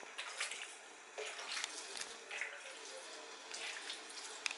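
Water poured from a plastic jug splashing and pattering in short bursts onto steamed vermicelli in a metal tray: cold water wetting the seffa after its first steaming.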